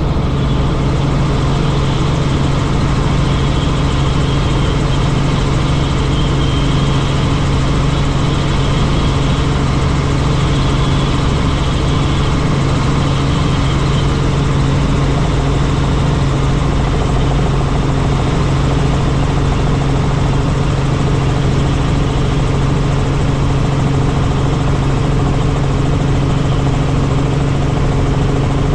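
Helicopter in flight: the steady, loud drone of rotor and turbine engine, with a strong low hum that holds unchanged throughout.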